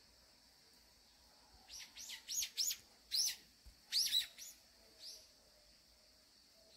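A small songbird chirping a run of short, high notes in quick groups, starting about two seconds in and stopping about five seconds in.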